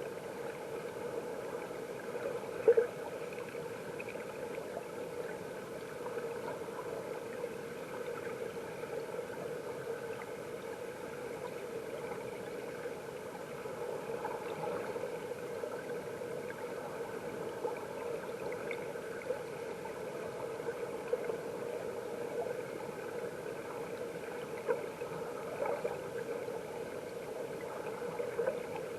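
Stream water flowing, heard with the microphone underwater: a steady muffled rushing and gurgling with a constant hum-like tone, a few faint ticks, and one sharp knock about three seconds in.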